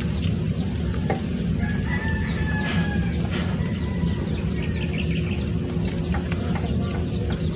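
A rooster crows once, one long held call about two seconds in, with chickens clucking and short high chirps around it, over a steady low rumble.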